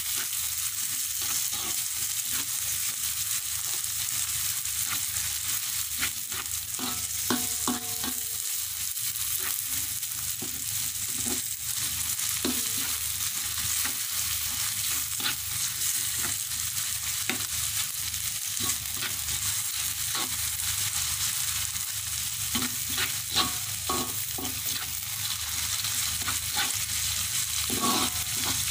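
Garlic, shallots and spring onion sizzling in margarine in a wok, with a steady hiss, while a plastic spatula stirs them, scraping and tapping against the pan many times.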